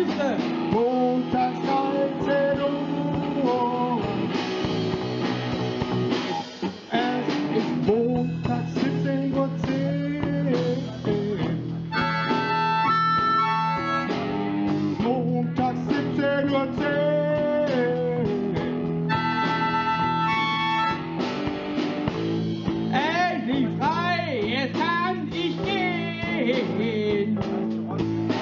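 Live blues-rock band playing: electric guitar, keyboard and drum kit, with a harmonica played into the vocal microphone over the band, holding long notes at times.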